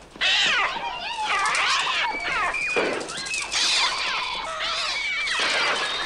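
Screeching of a flock of attacking gulls in the film's soundtrack, many shrill cries overlapping and sliding up and down in pitch. The bird cries are electronic sound effects made on a Mixtur-Trautonium.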